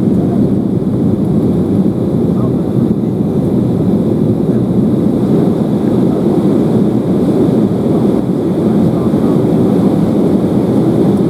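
Steady low rumble of jet engine and airflow noise inside an airliner's passenger cabin during the descent to landing.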